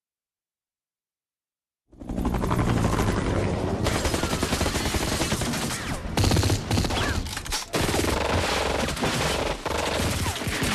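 Dense automatic gunfire from a war-film battle scene, starting abruptly about two seconds in after silence.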